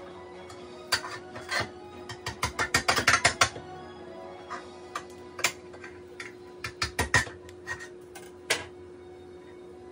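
Kitchenware clinking and tapping: a utensil knocking against dishes and pots in irregular clusters of sharp clicks, busiest in the first few seconds and sparser afterward.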